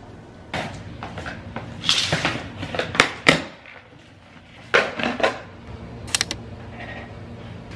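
Scissors cutting the packing tape on a cardboard box, then the cardboard flaps and packing being pulled open: a run of scraping, tearing and rustling, with a few sharp clicks near the end.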